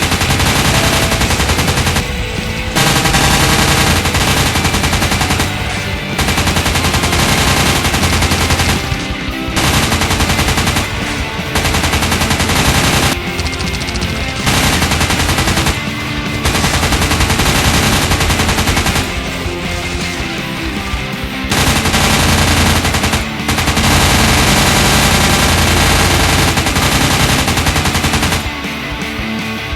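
Added machine-gun sound effects: long bursts of rapid automatic fire, each lasting a few seconds and broken by short pauses, over background music.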